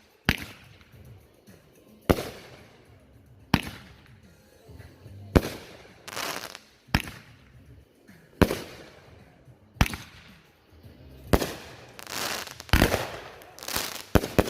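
O.B.M. consumer firework cake firing a steady series of shots, about one every second and a half. Each shot is a sharp launch crack followed a moment later by the break overhead.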